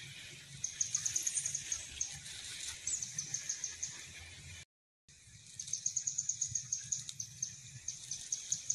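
Outdoor ambience with a quick run of high-pitched chirps, about six a second and lasting a few seconds, from a small bird or insect. The run repeats after a short gap, and all sound cuts out for about half a second near the middle.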